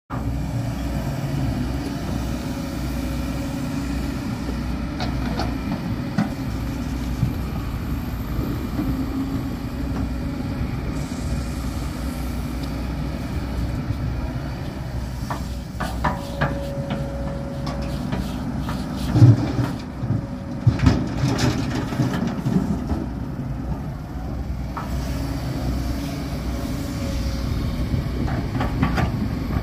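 Kobelco SK200 hydraulic excavator's diesel engine running steadily under load as it digs rock and soil. A cluster of knocks and clatters of rock against the steel bucket comes about two-thirds of the way through.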